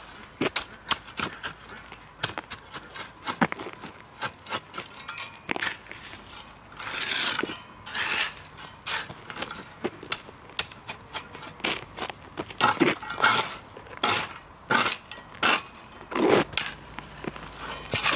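Steel bow rake dragged through crushed stone gravel to spread and level it: repeated scraping strokes with sharp, irregular clicks and clinks of stones against the metal tines.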